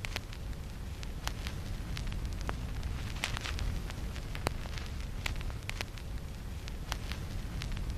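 Steady crackling noise with irregular sharp pops over a low rumble.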